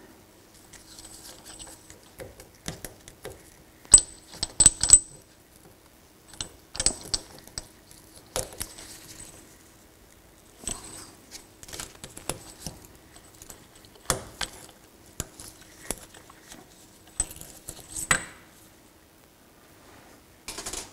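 Light metal clicks, scrapes and clinks, coming in scattered clusters, of a rounded steel pick prying a snap ring out of its groove in a Fox EVOL shock body, above the seal head.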